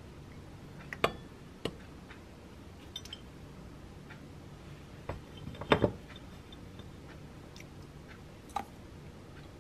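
Sparse light clicks and knocks of tableware being handled on a kitchen counter: a stemmed glass and a ceramic plate, as a cookie is broken apart and set on the plate. The loudest are two quick knocks a little past halfway. A faint steady low hum runs underneath.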